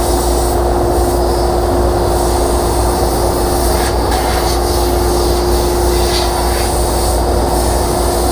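Compressed air blowing dust out of the inside of a table saw, over the steady running of a shop vacuum pulling the dust away. It is a loud, continuous hiss and drone with a steady hum underneath, and the hiss shifts as the air nozzle is moved.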